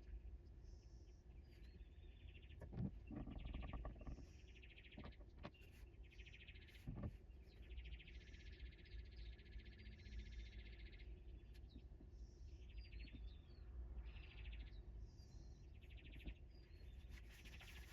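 Faint birds chirping repeatedly, with a couple of soft knocks.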